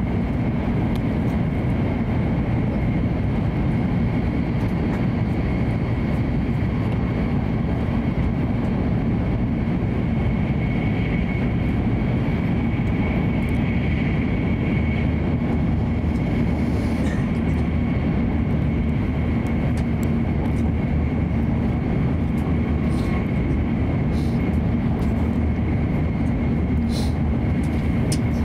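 Hokuriku Shinkansen train running at speed, heard from inside the passenger cabin: a steady rumble of wheels on rail with a faint steady high whine above it.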